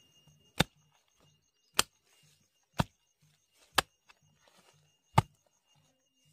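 A wooden-handled hand hoe chopping into soil to dig up ginger: five sharp strikes, about one a second.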